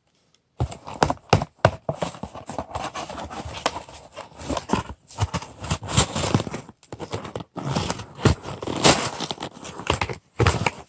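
Gerber 06 serrated tanto knife cutting through material, a dense, irregular run of scraping and sharp clicks and knocks with brief pauses.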